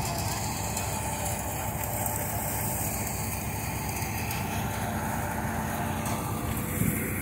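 Tractor-powered paddy/multi-crop thresher running steadily while threshing: the tractor's diesel engine drones under load beneath the steady rush of the thresher drum and blower throwing straw out through the chute. There is a brief knock near the end.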